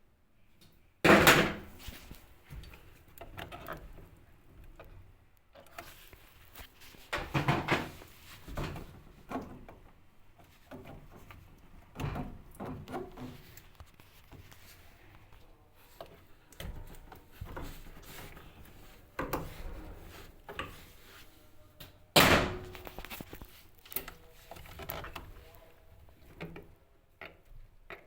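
Irregular knocks, thuds and clatter of a washing machine's parts and panels being handled and fitted, with two loud bangs, one about a second in and one about 22 seconds in.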